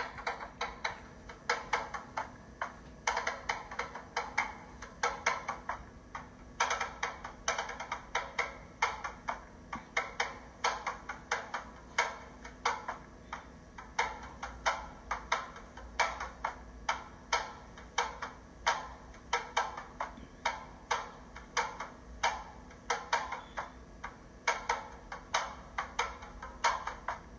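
Background music track of dry, clicking percussion like wood blocks or sticks, a few hits a second in an uneven pattern.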